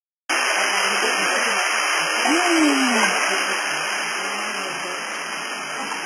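Steady rushing of a waterfall. About two and a half seconds in, a person makes one brief vocal sound that falls in pitch.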